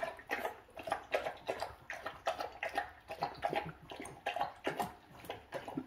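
German Shepherd lapping water from a plastic bowl, a steady run of quick wet laps, about three to four a second.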